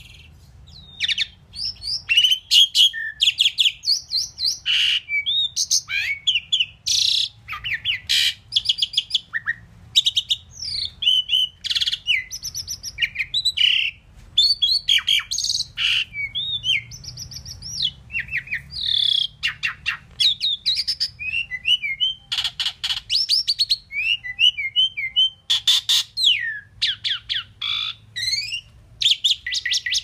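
Asian pied myna singing: a long, fast run of whistles and chirps mixed with harsh, squawky notes, broken by only brief gaps.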